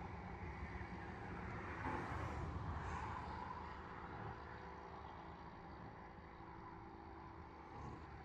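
Steady rumble of car and road noise from driving on a highway. It swells about two to three seconds in, then settles a little quieter.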